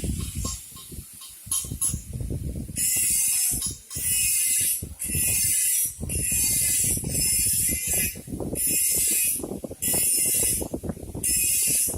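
Welding workshop noise: a dense crackle of quick clicks with loud bursts of high hiss, each about a second long, starting and stopping over and over.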